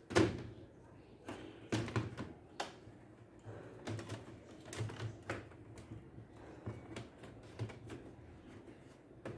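A run of irregular clicks and knocks, unevenly spaced, from hands working on a laptop, over a faint low hum.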